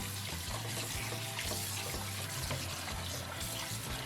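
Kitchen tap running into a sink while food is rinsed under the water.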